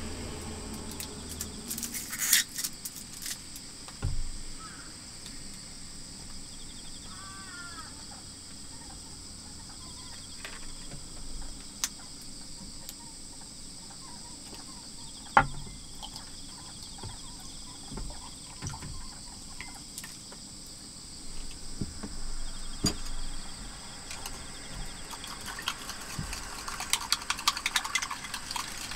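Insects trilling steadily outside, with small clicks and knocks as a milk carton and a glass are handled on a wooden table, the sharpest knock about halfway through. Near the end, chopsticks scrape and clink rapidly in the glass as the milk is stirred.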